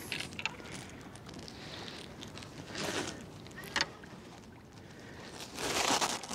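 Handling sounds of an angler playing a hooked kokanee on a rod and reel from a kayak: swells of rustling noise, the loudest near the end, and a few sharp clicks.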